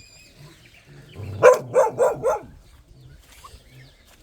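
A dog barking four times in quick succession, about a second and a half in.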